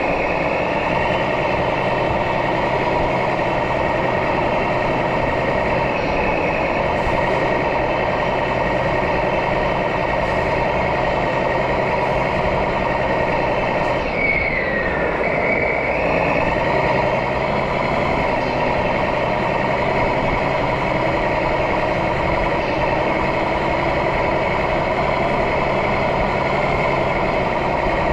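Simulated diesel truck engine from a radio-controlled model truck's electronic sound module, running steadily through its small speaker. A brief falling whistle comes about halfway through.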